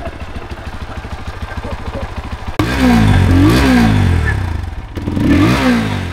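Lifan KPR 200 single-cylinder motorcycle engine heard at its exhaust: idling steadily, then revved in quick throttle blips about two and a half seconds in and once more near the end, the exhaust note rising and falling back each time.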